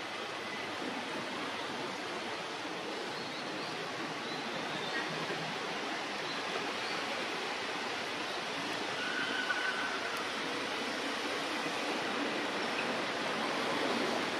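Steady rushing hiss of outdoor background noise with no clear single source, and a few faint, brief high chirps in the middle.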